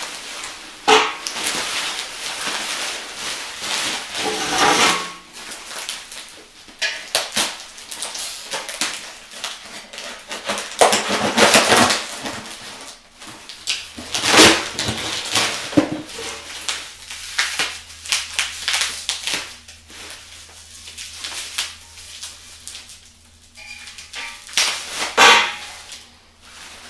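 Plastic bubble wrap crinkling and rustling in irregular bursts as it is cut with a knife and pulled off a set of steel exhaust headers, with occasional light clinks of the metal header tubes.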